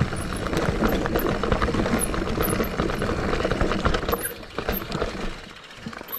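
Santa Cruz Heckler mountain bike riding down a rough forest trail: tyre noise over dirt with a dense run of rapid rattling knocks from the bike. It eases off and goes quieter about four seconds in.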